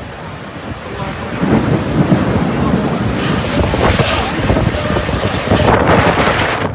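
Storm wind gusting hard and buffeting the microphone, growing louder about a second and a half in.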